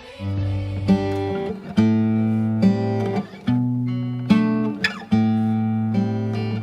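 Background music: strummed acoustic guitar chords, without singing, changing chord about once a second.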